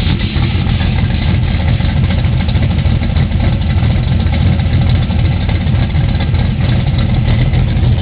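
Big-block V8 engine of a Chevrolet Nova race car idling steadily and loudly.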